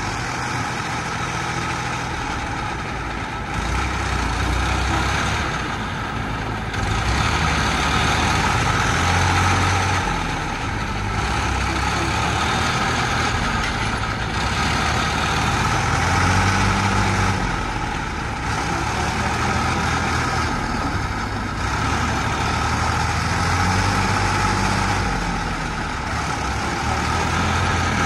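Diesel engines of a farm tractor and a JCB backhoe loader running hard together, the engine note swelling and easing several times as they are revved to free the tractor and its loaded trailer stuck in mud.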